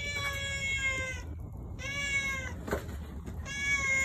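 Stray cat meowing three times in a row, each meow long and even in pitch, asking for food because it is hungry.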